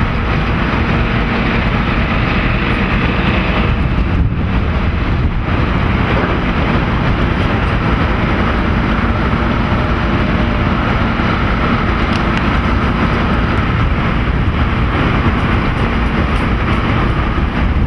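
Loud, steady outdoor rumble and hiss of wind buffeting the microphone, over the noise of city traffic.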